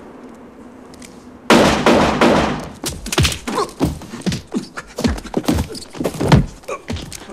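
A violent scuffle: a sudden loud crash about a second and a half in, then a rapid, irregular run of thuds and knocks as bodies and furniture collide in the struggle.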